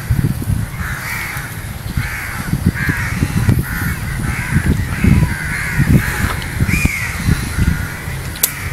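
Crows cawing over and over, about a call every half second, with low thumps and rumble underneath and a sharp click near the end.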